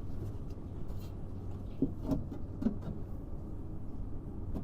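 Light clicks and taps of a VAV terminal unit's metal cover being handled and fitted back on, four small knocks about two to three seconds in, over a steady low hum.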